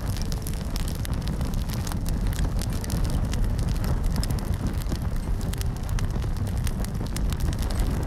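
Crackling campfire sound: a steady low rumble with many small pops and crackles scattered through it.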